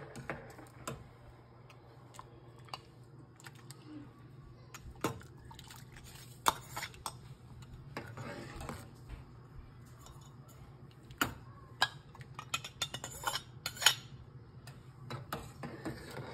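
Metal spoon clinking and scraping against a stainless-steel pot while stirring a thick paste into simmering liquid. The clinks come irregularly and cluster near the end.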